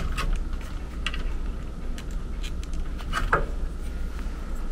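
Light clicks and rustles of wires and connectors being handled in an air handler's control panel, a few scattered ticks over a steady low hum.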